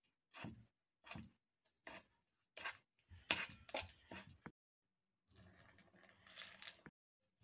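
Wet, sticky emmer sourdough dough being kneaded in a bowl: soft squelches a little under a second apart, then a quicker run of wet squelches and slaps, and after a short pause a longer continuous stretch of squelching.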